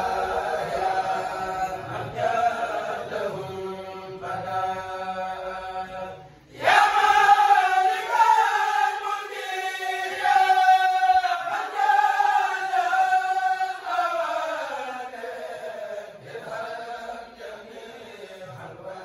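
A kourel, a group of men, chanting a Mouride khassida (devotional Arabic poem) together without instruments, on long held notes. There is a brief break about six seconds in, after which the chant comes back louder, then gradually fades toward the end.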